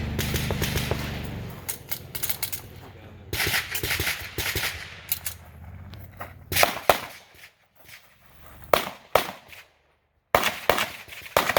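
Gunshots fired in quick strings, cracks in clusters of several shots with short pauses between them, as a competitor shoots a practical-shooting stage. A low rumble fills the first second and a half.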